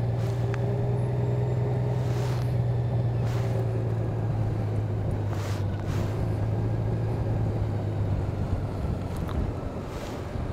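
Honda Gold Wing's flat-six engine running steadily at low revs, a constant low engine note, as the motorcycle rolls slowly.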